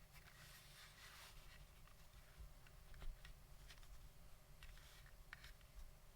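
Faint, scattered keystrokes on a mechanical keyboard with Cherry Vintage Black linear switches in an aluminium plate: a few light clacks, the sharpest about three seconds in.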